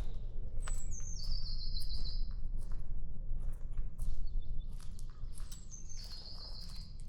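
A small bird singing two high phrases that step downward in pitch, about a second in and again near the end, over a steady low rumble and scattered short clicks.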